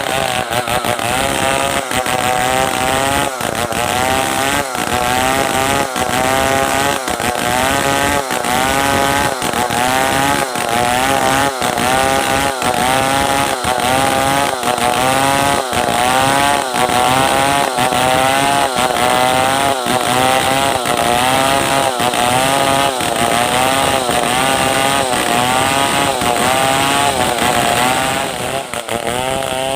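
Stihl 070 chainsaw, a large two-stroke, cutting hardwood under load. Its engine pitch rises and falls in a steady rhythm a little faster than once a second as the saw is rocked through the cut.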